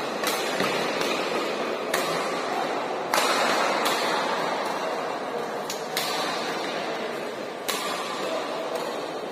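Badminton rackets striking a shuttlecock in a fast doubles rally: a string of sharp hits at uneven intervals, roughly a second or so apart, ringing in a large hall over steady hall noise.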